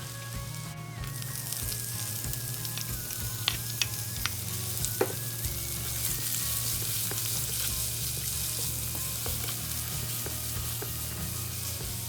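Food sizzling as it fries in a pan, with a steady hiss that grows a little louder about halfway through. A few sharp clicks of a utensil against the pan come in the middle as it is stirred.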